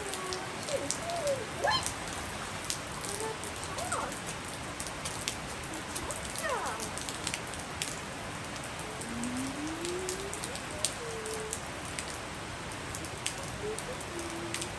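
Steady rain falling on wet floor tiles: an even hiss with many scattered sharp drop ticks.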